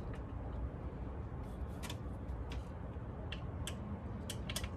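A Phillips screwdriver driving a screw through a license plate into a metal bracket, giving a scattering of short, light clicks and ticks. Under them is a steady low rumble of wind on the microphone.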